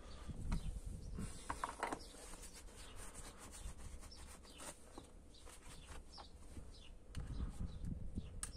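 Faint scattered clicks and scrapes of a long screwdriver and a strut top mount bearing being handled and pried at.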